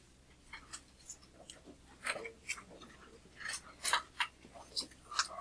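Scattered light clicks and taps at irregular intervals, small handling noises with no steady rhythm.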